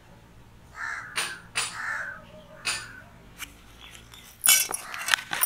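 A crow cawing about three times. Near the end there are louder rustling and clicking noises.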